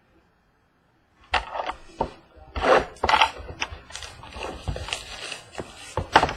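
Trading-card box and its packaging being torn and opened by hand: a busy run of crinkling, ripping and knocks that starts about a second in.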